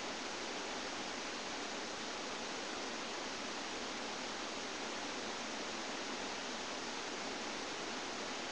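Steady, even hiss from a low-quality webcam microphone, with no sneeze or other sound standing out.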